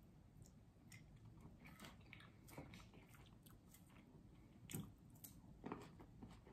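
A person chewing food close to the microphone: quiet wet mouth clicks and smacks, with a few louder smacks about five seconds in.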